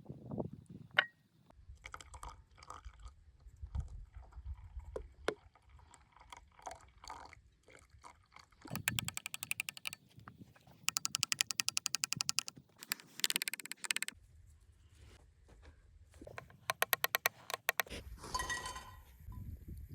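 Batter of eggs and flour being beaten in a bowl: several bursts of quick, even clicking, with scattered knocks and handling sounds between them.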